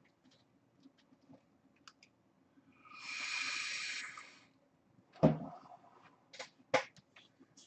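A soft hiss lasting about a second, then a dull thump and two short clicks.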